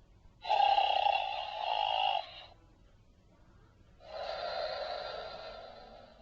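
Recorded snoring played by a toy's voice box: two long snores, the first starting sharply and the second swelling up and fading away.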